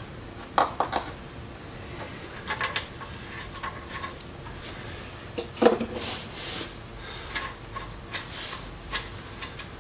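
Scattered light clicks, taps and rubbing from hand work at the log splitter's small engine just after its oil refill, with one louder short sound a little past halfway.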